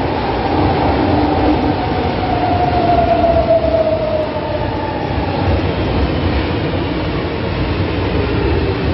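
Metro train pulling into an underground station and slowing to a stop, with a steady rumble from the wheels and a whine that falls in pitch as it slows.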